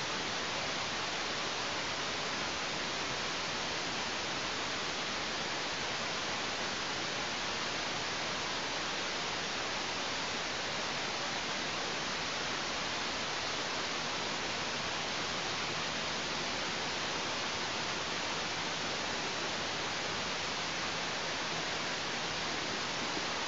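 Steady, even hiss of a wildlife nest camera's outdoor microphone, unchanging throughout, with no calls or other distinct sounds.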